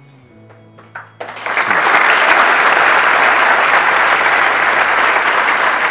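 Studio audience applauding: after a brief hush the clapping starts about a second in, swells quickly and carries on steadily.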